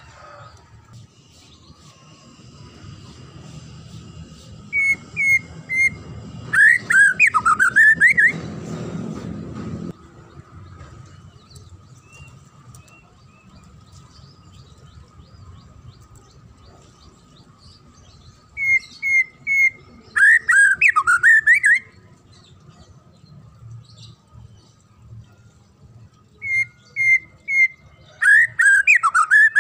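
White-rumped shama (murai batu) singing the same phrase three times, about eleven seconds apart: three short clear notes followed by a loud run of rapid rising and falling whistles.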